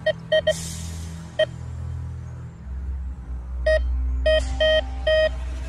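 Metal detector beeping over soil: short beeps of one steady tone, three quickly at the start, one more about a second and a half in, then a run of about five near the end. The beeps signal a buried metal target under the search coil.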